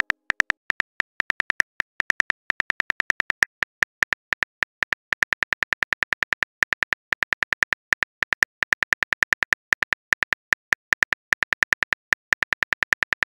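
Phone keyboard typing sound effect: a quick, uneven run of short high ticks, several a second, one per keystroke as a text message is typed out.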